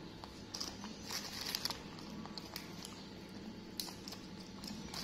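Faint, scattered crinkles and small snaps as green vegetable stems are picked apart by hand among plastic bags.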